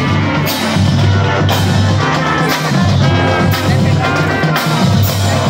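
Marching band playing as it passes: brass with deep bass notes over drum hits about once a second.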